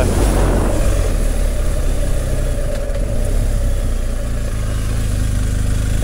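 BMW R 1250 GS Adventure's boxer-twin engine running steadily, with wind noise on the microphone.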